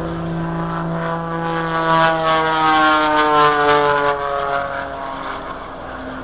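Propeller aerobatic airplane flying a low pass under power: its engine drone grows louder, peaks about two to three and a half seconds in, and drops in pitch as it goes by.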